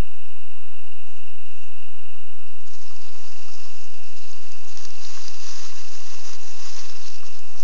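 Night insects trilling in one steady high tone. About three seconds in a louder rustling hiss joins it, with short crackles.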